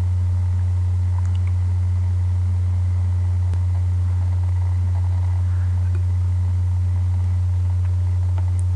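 A loud, steady low hum that does not change, with a few faint clicks.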